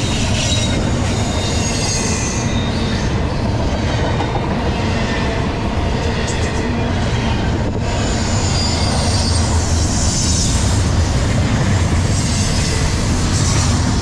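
Double-stack intermodal freight train's well cars rolling past at speed: a loud, steady rumble of steel wheels on rail, with thin high squealing from the wheels over it.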